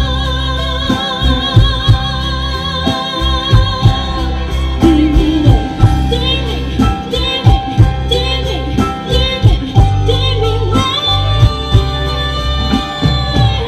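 Live band music over the stage PA: a singer with violins, electric guitars, keyboards and drums, a steady drum beat underneath. A long held note sounds from about three-quarters of the way in.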